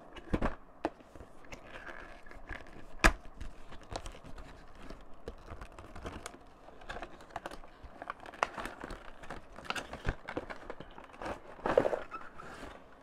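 Cardboard toy box being opened by hand: the inner tray slides out of its sleeve with scattered taps, scrapes and the crinkle of plastic wrapping. A sharp knock about three seconds in is the loudest, and a louder rustle comes near the end.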